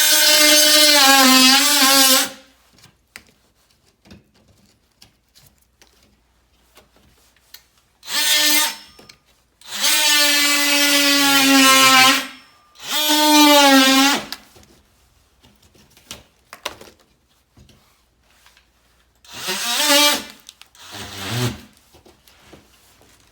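Electric drill run in short bursts, its motor whining for one to three seconds at a time with quiet gaps between. The pitch dips as each burst winds down.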